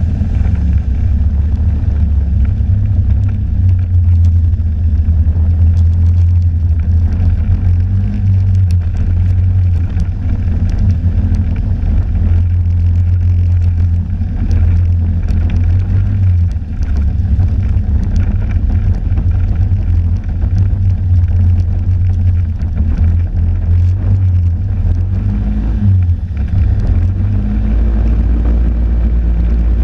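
Snowmobile running steadily at trail speed, heard from on board: a loud, low, unbroken engine-and-track drone.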